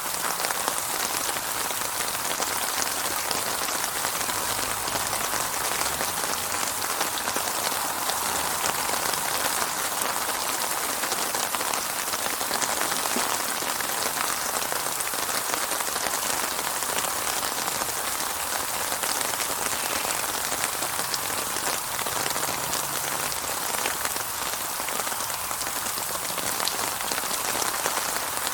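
Steady rainfall with dense, closely spaced drops pattering on a surface, with no thunder.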